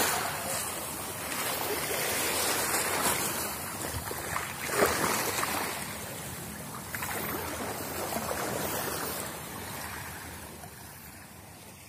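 Small waves washing on the shore: a steady hiss that swells and eases several times and dies away toward the end.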